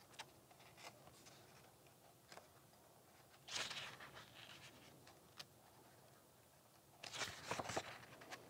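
Near silence: room tone with a few faint taps and soft rustles, louder about halfway through and again near the end.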